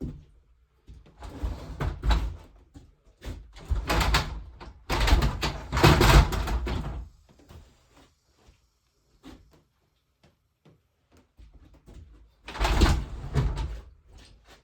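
Heavy wood scraping and knocking against wood in irregular bursts: a long, loud stretch in the middle and another short one near the end, with scattered knocks between.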